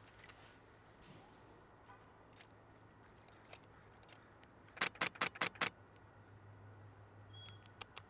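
Camera shutter firing a rapid burst of about six frames in under a second, about five seconds in. Just after, a faint high bird call glides downward.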